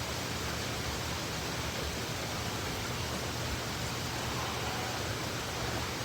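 Heavy rain falling, a steady even hiss with no break.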